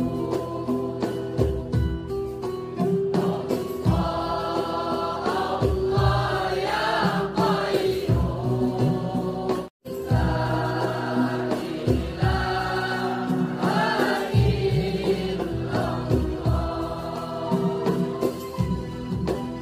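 A large group of voices singing together in chorus, with drum hits underneath. The sound cuts out for an instant about ten seconds in.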